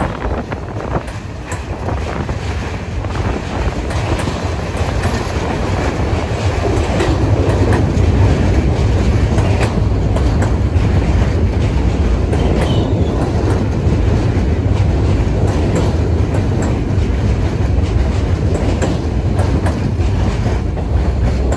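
New York City subway train running along the track, its wheels clacking over the rail joints. It grows louder over the first several seconds, then holds steady.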